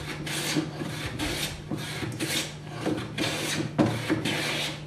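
Hand plane shaving timber in quick, even strokes, about two a second, the blade held skewed so that it slices the wood rather than chops it. A steady low hum runs underneath.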